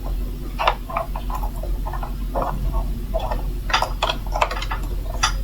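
A screwdriver turning a small screw back into a Roomba's side-brush mount: irregular small clicks and scrapes of metal on plastic, with a few sharper ticks near the end.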